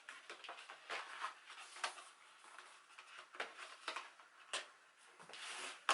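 Album packaging being handled by hand: irregular soft rustles of paper and plastic with small clicks, and a longer rustle near the end.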